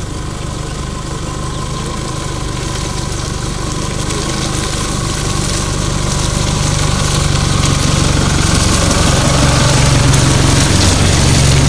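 Isuzu D-Max pickup driving slowly past at low engine speed, its engine and tyres on loose dirt growing steadily louder as it approaches and passes close by.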